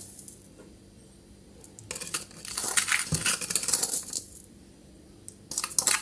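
A spoon scooping granulated sugar and tipping it into a dish: a gritty rattle of grains with light clinks, about two seconds in and again near the end.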